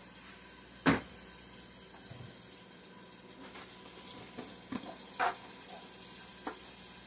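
Faint steady sizzling from a lidded skillet of frying potatoes, with one sharp knock about a second in and a few lighter knocks and clinks later on from kitchen utensils and containers being handled.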